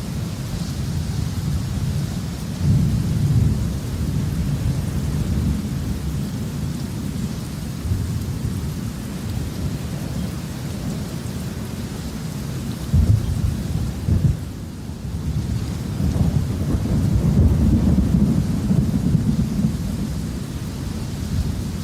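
Thunderstorm: thunder rumbling continuously over steady rain, swelling several times, with two sharp cracks about 13 to 14 seconds in and a long rolling peak soon after.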